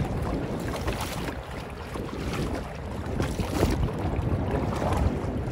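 Wind buffeting the microphone outdoors: a low, uneven noise that rises and falls, easing off for a moment between about one and three seconds in.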